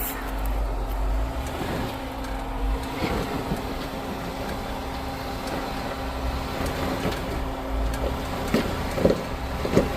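Off-road 4x4's engine running at low revs as it crawls over rock, a steady hum with a low rumble that swells a few times.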